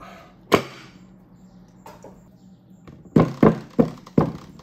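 Rubber mallet striking the brake ring of a J-type overdrive to tap it down onto the gasketed housing: one knock about half a second in, then four quick blows near the end.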